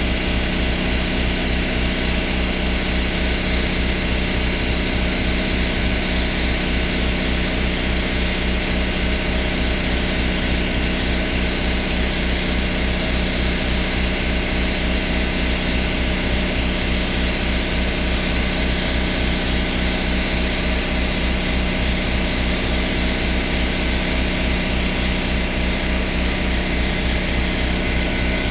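Air spray gun hissing as base coat is sprayed onto a car hardtop, over the steady low pulsing of a running air compressor. The hiss cuts off suddenly near the end as spraying stops, leaving the compressor running.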